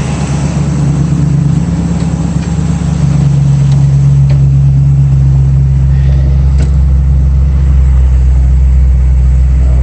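1965 Ford Mustang engine idling steadily at operating temperature. It gets louder about three seconds in.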